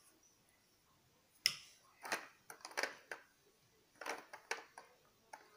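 Large plastic toy building blocks clicking and knocking together as they are handled and stacked on a plastic block bucket: a string of light clicks in small clusters, starting about a second and a half in.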